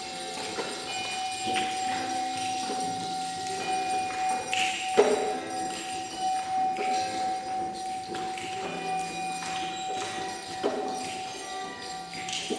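Several small percussion instruments played together: jingling bells and shaken jingles, with scattered struck notes that ring on. Under them a single steady ringing tone is held almost throughout, and a sharp strike about five seconds in is the loudest sound.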